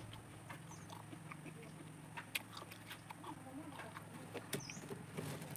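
Faint chewing of tamarind pulp: scattered soft mouth clicks and smacks over a low steady hum.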